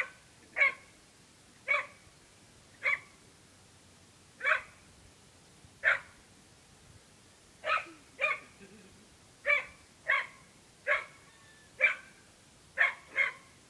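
Dog barking in short, sharp single barks, roughly one a second, with a few coming in quick pairs.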